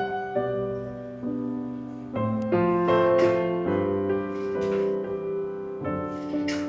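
Background piano music: a slow run of sustained chords and notes, with a few faint short rustling or clicking noises over it.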